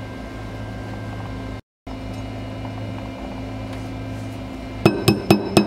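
Steady low hum of the shop, then near the end a quick run of about five light, ringing metal taps: a hammer tapping a pin into an FAL rifle's gas block.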